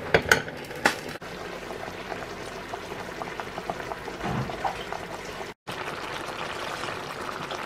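Pot of pork bone soup simmering, a steady bubbling hiss, with a couple of sharp knocks in the first second. It cuts out briefly about five and a half seconds in, then the simmering goes on.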